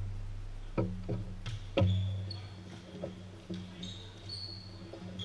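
Volleyball thumps, three in the first two seconds, each leaving a low ringing boom in the gymnasium, then sneakers squeaking on the court floor.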